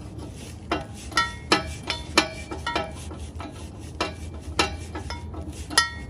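Irregular sharp metallic clinks, each with a short ring, from a wrench turning an oxygen sensor back and forth in the exhaust pipe's threaded bung, chasing the threads clean with the sensor itself.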